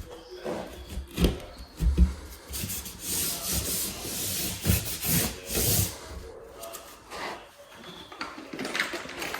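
A cut-out piece of drywall being pushed back into its opening in the wall, scraping and rubbing against the edges, with a few knocks as it is worked into place.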